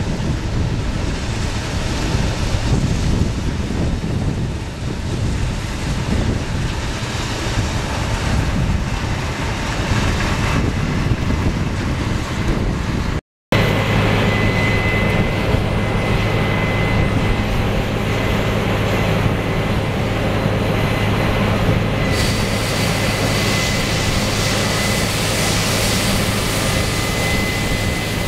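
Case AFX8010 combine harvester running as it harvests field peas, with wind noise on the microphone. About halfway through, after a brief break, the sound turns into a steady drone with a low hum and a thin high whine.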